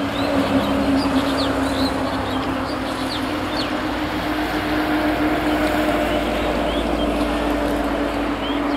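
Short, falling bird chirps, several early and a few more later, over a steady hum and rumbling outdoor noise.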